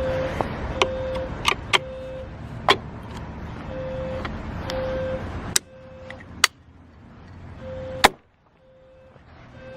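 Fire alarm horn sounding the temporal-three evacuation pattern: a steady low tone in groups of three short beeps, each group followed by a longer pause, set off by pulling the pull station. Several sharp clicks and knocks sound along with it.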